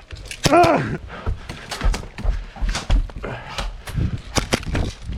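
Running footsteps with gear thudding, irregular at about two to three steps a second, after a short shout near the start.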